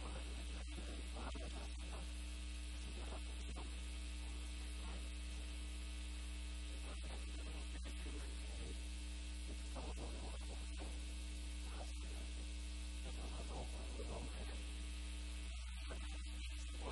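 Steady electrical mains hum, a low constant drone with no change in level, with faint scattered short ticks.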